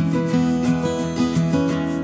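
Background music of strummed acoustic guitar, with a steady rhythm of about three strums a second.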